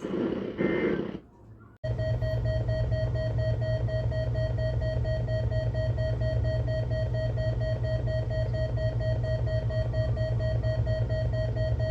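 Weather radio receiver's electronic alert alarm: one steady tone over a low hum, starting abruptly about two seconds in and holding for about ten seconds. It is set off by the weekly test of the NOAA Weather Radio warning alarm tone.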